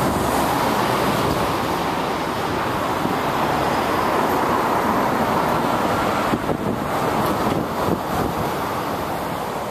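Steady traffic noise of cars driving along a city street.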